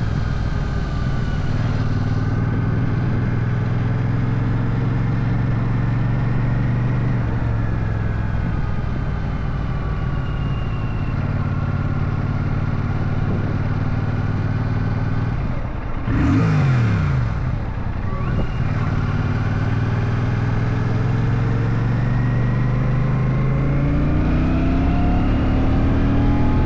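Royal Enfield Shotgun 650's 648 cc parallel-twin engine running steadily while riding, its pitch drifting gently with throttle. About sixteen seconds in comes a brief louder rush with a sweeping change in pitch.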